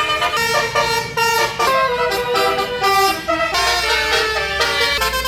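Indonesian bus 'telolet basuri' multi-trumpet air horn playing a quick melody of notes that change every fraction of a second.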